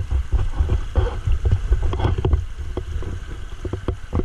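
Shallow river water splashing and sloshing right at an action camera held just above the surface, with a low rumble of wind and handling on the microphone and many small knocks.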